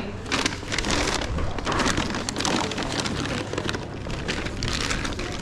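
Rustling and crinkling as hands work inside a Spartan Pack insulated delivery backpack with a foil-lined compartment, a dense crackle of many small rustles.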